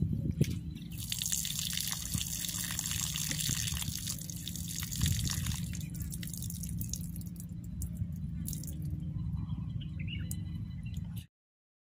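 Dripping and trickling water with scattered small clicks over a steady low hum, cutting off suddenly near the end.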